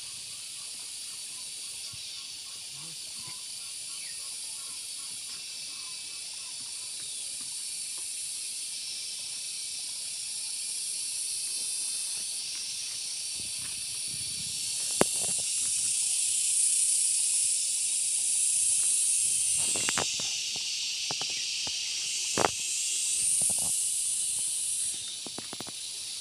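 A steady high hiss, swelling louder about halfway through and again near the end. A few sharp snaps and rustles come from hands working among the vegetable plants.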